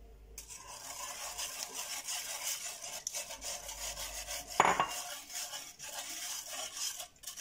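Wire whisk stirring sugar into coconut milk in a pot, a quick scraping and rubbing with the wires brushing the pot. One louder clink comes about four and a half seconds in.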